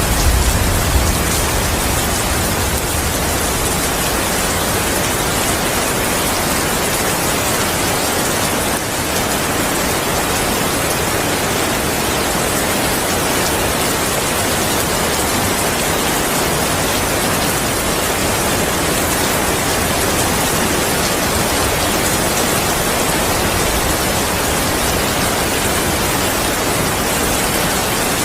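Heavy rain falling steadily as a dense, even hiss, with the tail of a low thunder rumble dying away in the first second or so.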